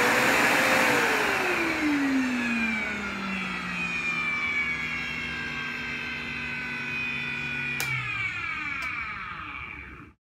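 SEBO Felix upright vacuum cleaner running, its motor whine sinking slowly in pitch. About eight seconds in there is a click, after which the whine falls away faster, and the sound cuts off abruptly near the end.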